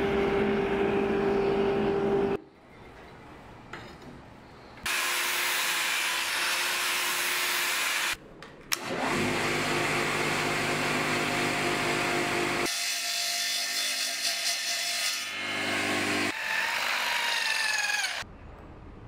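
Knife-making workshop noise in a series of short cuts: power tools running with a steady motor hum under a hissing grinding or sawing noise. The sound changes abruptly every few seconds, with brief quieter gaps between the clips.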